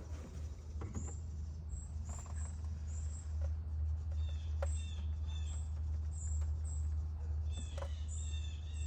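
A small bird chirping over and over in short high notes, more busily near the end, over a steady low hum.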